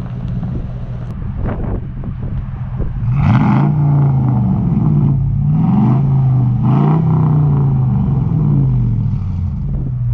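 Dodge Ram 1500 Daytona's 5.7 L Hemi V8, exhaling through a freshly fitted Black Widow Neighbor Hater muffler and black tips, idling, then blipped about three times from about three seconds in, each rev rising and falling, and settling back to idle near the end.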